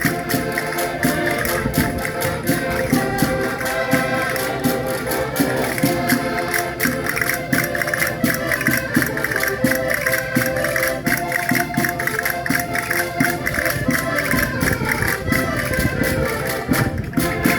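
Concertinas playing a traditional dance tune in sustained chords, over a steady percussive beat.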